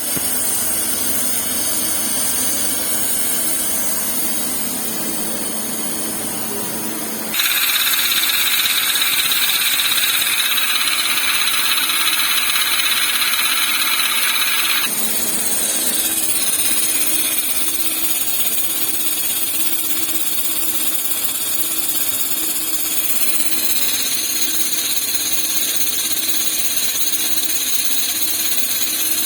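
Sugami CNC turning machine running with its live tool driven, a steady machine hum with a few constant tones. About seven seconds in, a louder harsh grinding noise cuts in, lasts about seven seconds and stops abruptly. This is the abnormal live-tool noise that the uploader puts down to a gear problem in the live tool drive.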